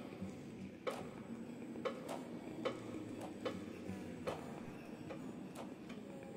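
Sparse, irregularly spaced sharp clicks, about seven, each with a brief ring, over a low held drone. This is a quiet passage of a contemporary piece for violin, cello, accordion and electronics.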